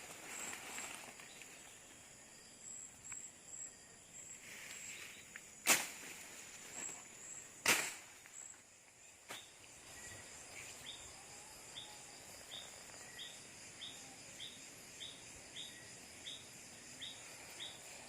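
Faint night insect chorus: a steady high trill, joined from about ten seconds in by short chirps repeating about one to two times a second. Two sharp clicks stand out near the middle.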